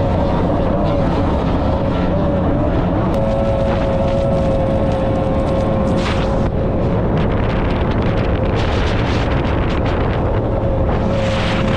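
Thundercat race boat's outboard motor running at a steady high speed, its engine note holding a constant pitch, with wind and water rush over it and brief surges of hiss, the strongest near the end.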